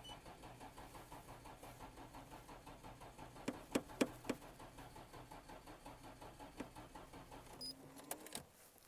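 Nissan Skyline GT-R's RB26 straight-six being turned over weakly by its starter motor on a nearly dead battery, a faint, slow, even cranking that never catches. A few sharp clicks come about three and a half to four seconds in, and the cranking stops with more clicks near the end.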